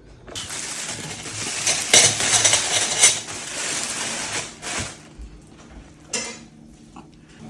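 Kitchen utensils scraping and clinking against a bowl for several seconds, followed by a few separate sharp clinks.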